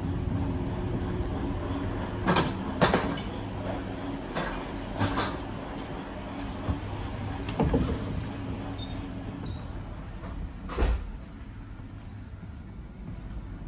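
Inside a DB class 612 tilting diesel multiple unit: the steady low hum of the train running, with several sharp knocks and clatters from the vestibule's sliding door and fittings while walking through. The loudest knock comes about eleven seconds in, after which the hum is quieter.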